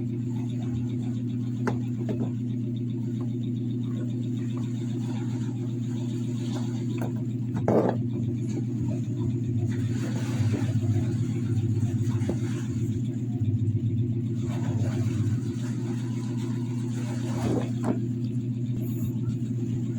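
A steady low electrical hum, with a few light clicks and taps from small-parts bench work and one louder knock about eight seconds in.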